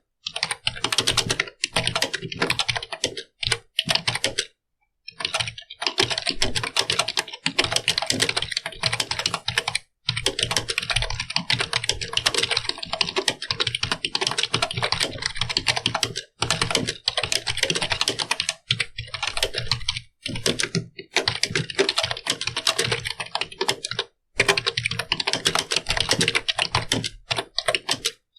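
Continuous fast typing on a computer keyboard: rapid key clicks in long runs, broken by brief pauses every few seconds.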